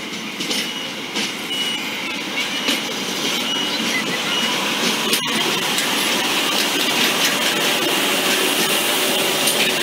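Plasser & Theurer track maintenance machine running on the rails as it approaches, growing steadily louder.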